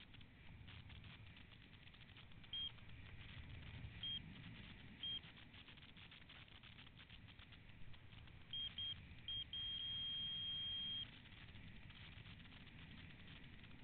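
Skydiver's audible altimeter sounding its canopy altitude alerts: single short high beeps a second or more apart, then a quick run of short beeps about nine seconds in, ending in one long tone of over a second. Steady wind rush from canopy flight runs underneath.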